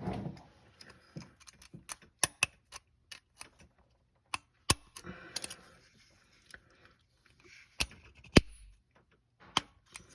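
Spring-loaded center punch snapping against a broken exhaust bolt in the cylinder head: a series of sharp metallic clicks at irregular intervals, with faint tool rattling between, as the punch's strikes work the seized bolt loose.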